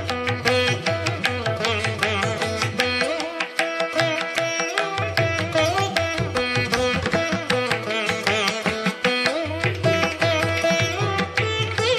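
Instrumental background music with pitched melody notes, some bending in pitch, over a steady beat.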